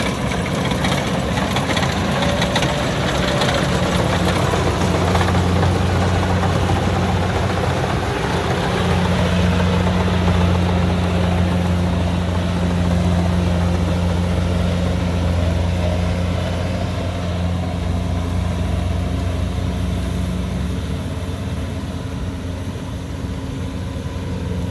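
Kubota DC70 combine harvester's diesel engine running at a steady speed, a continuous low hum that swells a little in the middle and eases off near the end.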